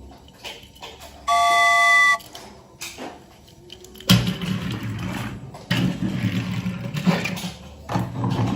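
A steady horn-like tone of several pitches sounds for about a second, then uneven bursts of low rumbling, clattering noise.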